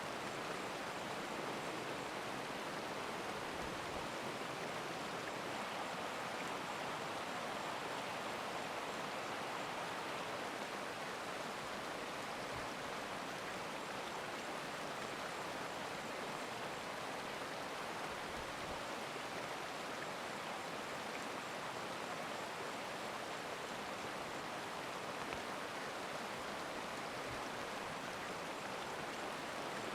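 A stream rushing steadily, an even hiss of running water.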